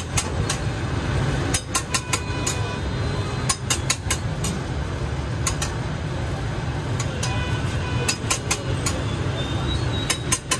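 Metal spatula clinking and tapping on a flat steel griddle, sharp irregular clicks, some in quick runs, over a steady low hum.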